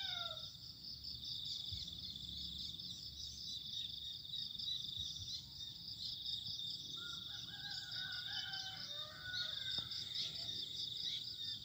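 Insects chirping in a steady, high, pulsing trill, with fainter wavering calls in the middle range from about seven seconds in.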